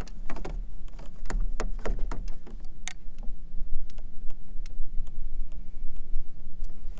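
Scattered clicks and knocks of a landing net and fishing gear being handled in a plastic kayak, over a steady low rumble.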